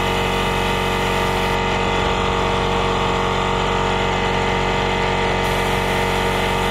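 Air compressor supplying an airbrush, its motor running steadily with an even, unchanging hum.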